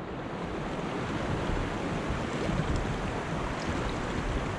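Whitewater river rapids rushing steadily, with wind buffeting the microphone.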